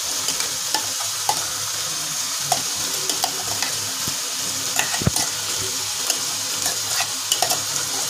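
Soya chaap and tomato masala sizzling steadily in a frying pan while onion paste is spooned in from a mixer jar, with scattered clicks of the spoon and one sharper knock about five seconds in.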